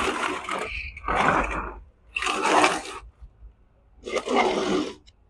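Plant pots dragged across the balcony floor: four scrapes of about a second each, with short pauses between.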